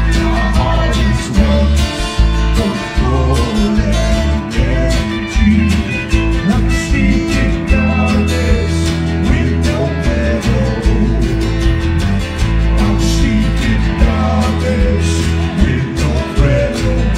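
Live alt-country band playing: strummed acoustic guitar and electric guitars over a bass line and a steady beat, with a voice singing at times.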